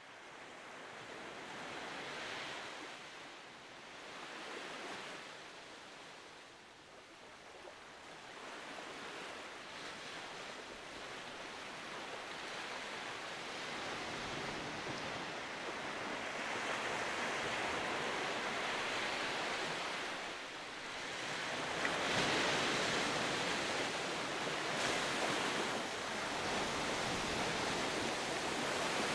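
Rushing noise of surf and wind, swelling and ebbing every few seconds and growing steadily louder.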